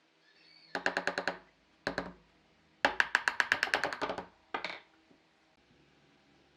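Runs of very fast wooden knocks, about ten a second, each with a short ringing pitch: four bursts, the longest lasting over a second.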